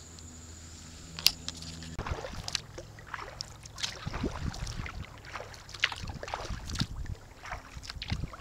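Kayak paddling: water splashing and dripping off a double-bladed paddle in quick, irregular splashes, starting about two seconds in after a steady low hum.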